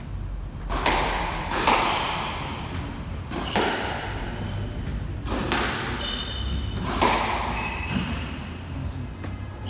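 Squash rally: the ball cracks off rackets and the court walls about five times, each hit ringing in the enclosed court, with sneakers squeaking on the wooden floor between shots.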